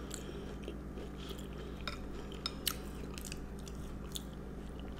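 Close-miked chewing of a chocolate chip cookie: scattered small crunches and wet mouth clicks, a few to the second, over a faint steady low hum.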